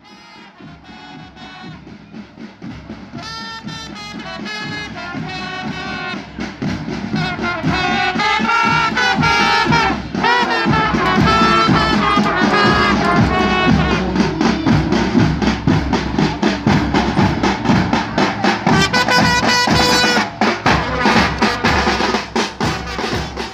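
Marching band of brass horns, trumpets, snare drums and bass drums playing a march, a held brass melody over a steady drumbeat. It grows louder over the first eight seconds or so, then stays loud.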